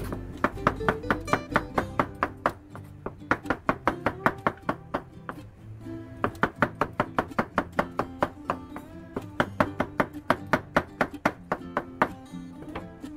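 Background music: a plucked acoustic guitar playing quick, evenly picked notes in phrases with short pauses.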